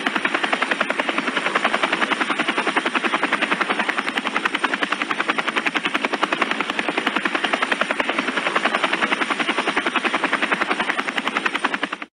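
Helicopter sound effect: main rotor blades chopping in a rapid, even beat at a steady pace. It cuts off abruptly at the very end.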